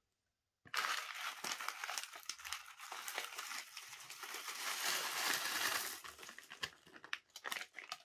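Crinkling and rustling as a filter media mesh bag is handled and filled with biological filter media, thick with small clicks. It starts just under a second in and thins to scattered clicks after about six seconds.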